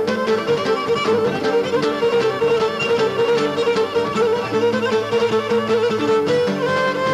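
Live Cretan traditional dance music: a bowed melody, typical of the Cretan lyra, playing a wavering, ornamented tune over a steady plucked accompaniment of laouto lutes and guitar.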